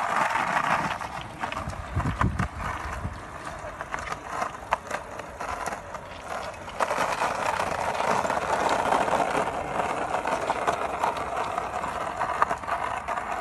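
Skateboard wheels rolling over asphalt: a steady rough rolling noise with scattered small clicks and rattles.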